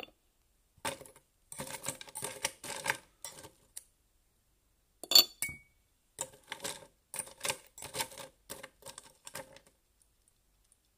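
Ice cubes being dropped one after another from metal tongs into a glass tumbler: a string of irregular clinks and knocks of ice on glass and tongs. One sharp, briefly ringing clink comes about five seconds in.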